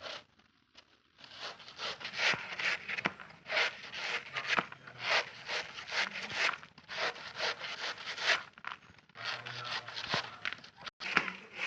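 Banana being grated on a hand grater: repeated rasping scrapes, about two strokes a second, beginning about a second in.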